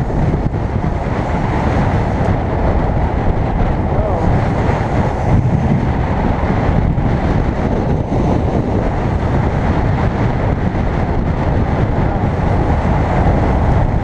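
Steady, loud wind buffeting on the microphone over the drone of a boat under way trolling through choppy water.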